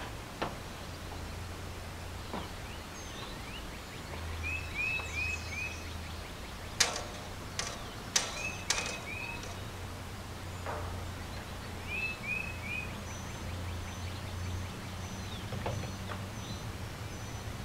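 A bird repeats a short phrase of three or four quick chirps every few seconds. A few sharp clicks and knocks come about seven to nine seconds in, from a hinged steel antenna mast and its rope as the mast is being lowered.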